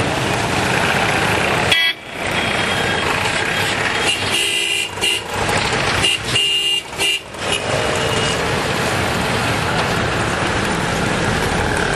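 Busy city road traffic: engines of autorickshaws, motorcycles and cars running close by, with vehicle horns honking several times between about four and seven and a half seconds in.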